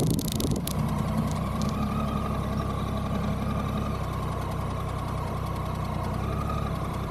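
Triumph Tiger 800's three-cylinder engine idling steadily with the motorcycle at a standstill, after a short rush of wind noise at the very start.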